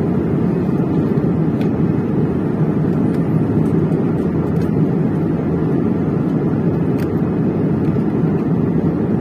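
Steady cabin roar of an Airbus A320-family jet airliner in flight: engine and airflow noise heard from a window seat, deep and even with no change.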